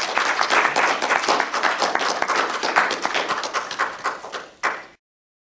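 Audience applauding at the end of a talk, a dense patter of many hands clapping that thins out and then cuts off suddenly near the end.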